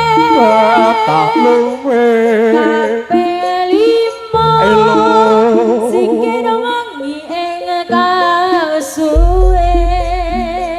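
A solo voice singing long, drawn-out melismatic lines with a wide, wavering vibrato in Javanese style, over sparse accompaniment. A deep low rumble comes in about nine seconds in.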